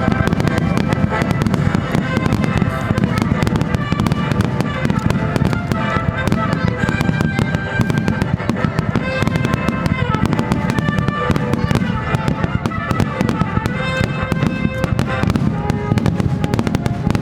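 Aerial fireworks bursting in a dense, continuous barrage of bangs and crackling, with music playing over it.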